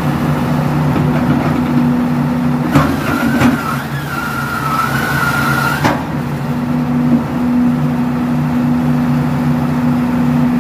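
A large engine running steadily at idle, with a higher wavering whine joining in for about three seconds in the middle.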